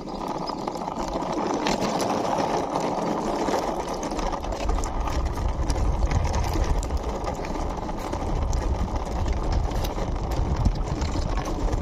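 Toy car's plastic wheels rolling as it is pushed by hand: a steady rolling rattle with scattered small clicks.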